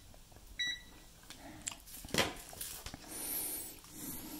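Klein MM400 multimeter's continuity beeper gives one short, high, steady beep as the test leads touch, then the meter is handled, with light clicks and a sharper knock about two seconds in.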